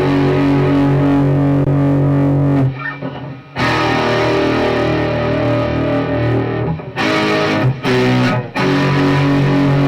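Electric guitar fitted with Fleor Alnico 5 humbucker pickups playing sustained chords, with a short break about three seconds in and brief gaps near eight seconds.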